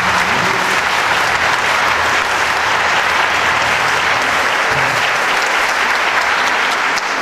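Congregation applauding: steady, sustained clapping from many hands, which begins to die away at the very end.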